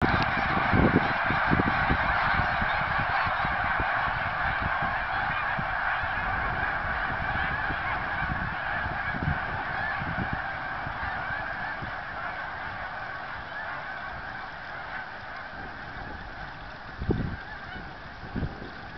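A flock of geese honking in a dense, overlapping chorus that gradually grows fainter, with scattered low thumps on the microphone.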